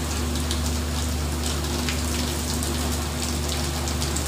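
Heavy rain pouring steadily onto the sea and a boat's deck, an even hiss with scattered drop ticks, over a steady low hum.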